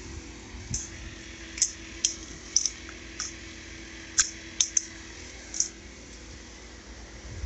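A pause in pressure washer spraying: a faint steady low hum with about ten short, sharp, light clicks scattered through it.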